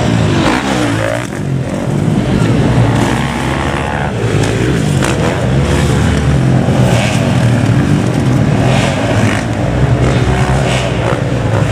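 Several motocross bike engines racing on a dirt track, revving up and down as they pass.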